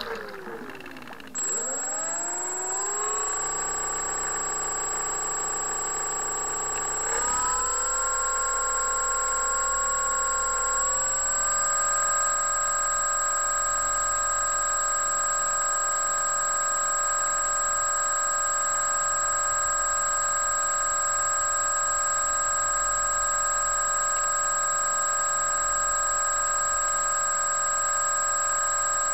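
Multiplex FunCub's electric motor and propeller whining as the floatplane taxis on the water after landing. The pitch falls over the first couple of seconds, then steps up twice and holds steady, with a thin, high, steady whistle from about a second in.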